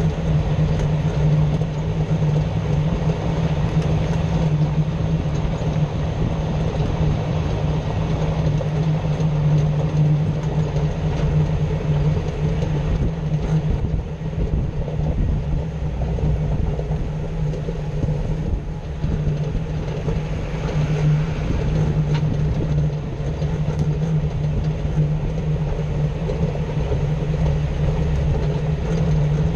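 Jeep Wrangler JK drivetrain and road noise picked up from underneath the vehicle: a steady rumble with a constant low drone, the grinding noise being tracked down.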